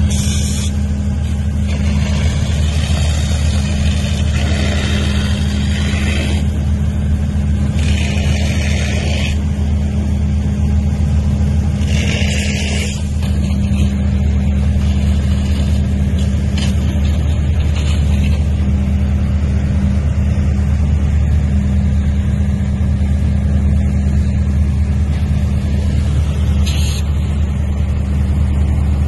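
A boat's engine running steadily with a low drone, heard from on board, with a few short bursts of hiss over it.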